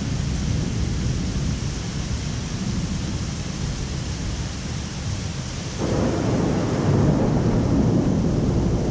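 Thunder rumbling low under a steady hiss of rain; about six seconds in, a louder peal of thunder breaks in abruptly and rolls on.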